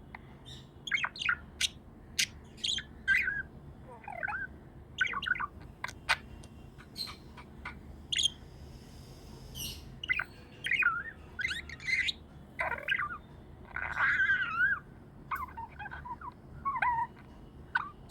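Budgerigars chirping: a continuous run of short, quick chirps that slide up and down in pitch, with a few sharp clicks among them.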